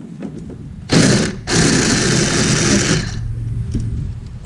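Ratchet being worked on an engine-mount bolt: two bursts of rapid mechanical clicking, a short one about a second in and a longer one of about a second and a half.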